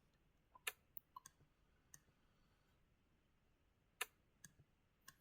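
Computer mouse clicking: a handful of short sharp clicks, irregularly spaced, with near silence between them.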